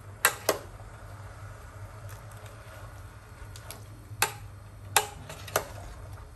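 Metal spoon clinking against the side of a stainless steel pot while stirring greens: two sharp clinks just after the start, then three more between about four and six seconds in. A steady low hum runs underneath.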